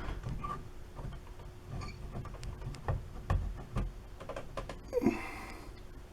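Scattered light taps and knocks of a stick poking at a ceiling-mounted smoke detector, trying to press its test button without setting it off.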